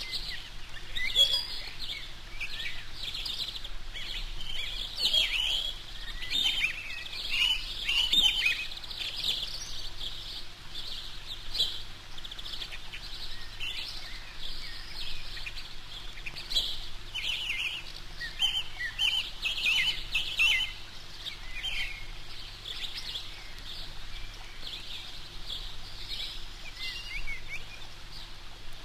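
Eurasian coot chicks peeping: a busy run of short, high-pitched begging calls to the parent on the nest, thinning out after about twenty seconds.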